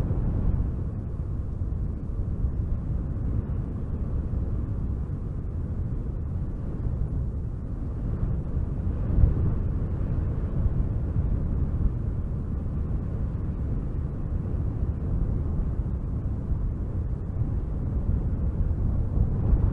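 Wind blowing in gusts, a deep, rumbling rush with one brief louder gust about nine seconds in.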